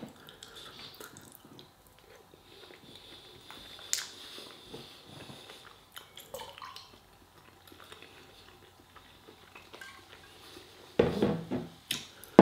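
Quiet chewing, with a fork clinking and scraping on a plate. Lager is then poured from a glass bottle into a glass, and a louder burst of sound comes near the end.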